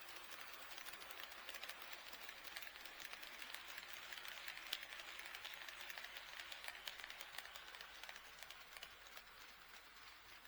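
HO-scale model train running on track, its wheels making rapid light clicks over the rail joints, fading away near the end.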